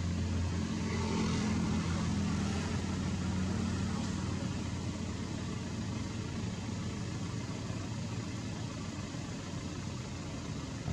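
A motor vehicle engine running nearby, a low hum that is louder over the first three seconds and then settles into a steady background rumble.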